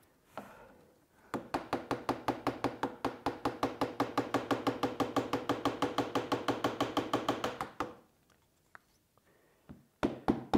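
Bench chisel working a wooden half-lap joint: a fast, even run of taps, about seven a second. The taps stop about eight seconds in and start again, louder, near the end.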